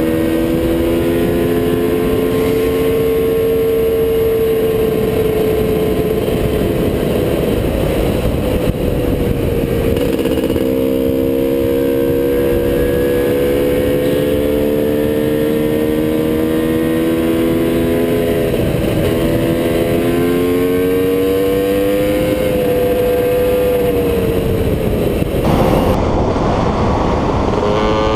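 TM Racing 300 two-stroke enduro motorcycle engine running at road speed, its pitch rising and falling gently with the throttle, over steady wind rush on the helmet microphone. About 26 seconds in, the sound cuts abruptly to another engine note that climbs in pitch.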